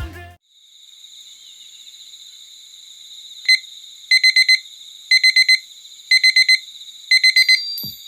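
Digital alarm beeping in quick groups of four, each group about a second apart, starting about three and a half seconds in, over a faint steady high tone.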